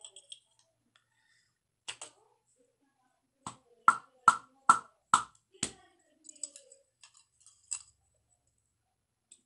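Steel gudgeon pin being struck by the flat of a hand to drive it through the bore of an aluminium air-compressor piston. One sharp knock about two seconds in, then six sharp knocks in quick succession, about 0.4 s apart, followed by faint small clicks of metal being handled.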